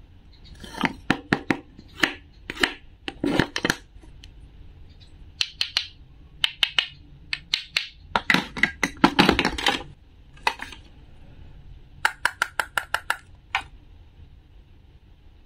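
Hard plastic toy fruit pieces handled and tapped together, giving a scattered series of sharp clicks and knocks, with a quick run of clicks near the end.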